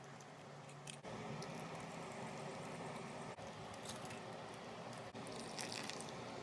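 Faint wet squishing and small clicks of spice-coated hilsa fish pieces being mixed by hand in a steel bowl, over a steady low hiss.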